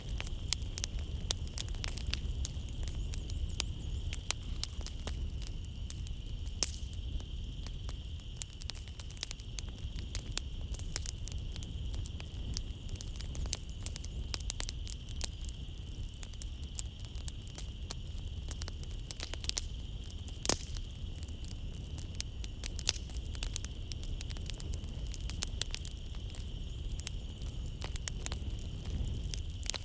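A wood fire crackling in a fireplace, with sharp snaps several times a second over the low rumble of the flames. A steady high chorus of night insects runs behind it.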